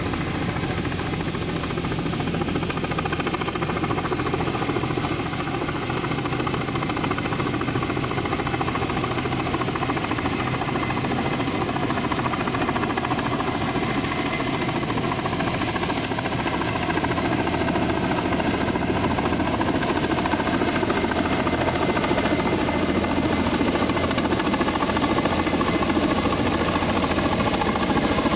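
Kamov coaxial-rotor helicopter running steadily, its rotor and turbine noise growing slightly louder toward the end.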